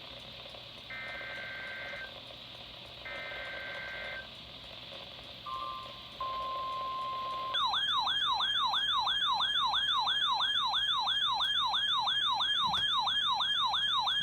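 Emergency Alert System tones: a short two-pitch data burst, about a second long, repeated after a pause of about a second. Next comes a short steady tone, then from about seven and a half seconds in a louder siren-like alert tone that sweeps up and down about three times a second.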